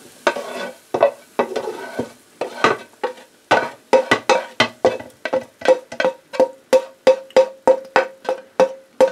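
Plastic slotted spatula scraping cooked diced vegetables out of a white non-stick frying pan. The strokes are uneven at first, then fall into a quick steady rhythm of about three a second, each with a short ringing note.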